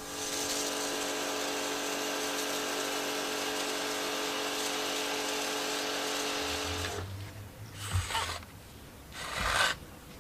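Small electric pressure washer running steadily, its motor and pump whining over a hiss of spray, then cutting off about seven seconds in; two short bursts follow near the end.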